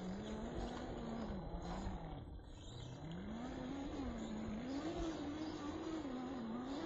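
Electric motor and gear drivetrain of a 1/10-scale RC rock crawler whining steadily, its pitch rising and falling as the throttle changes.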